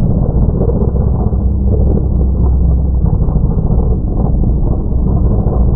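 Deep, muffled, steady rumble of a mega mud truck's engine, slowed down to a low drone with no high end, as in a slow-motion replay of the jump.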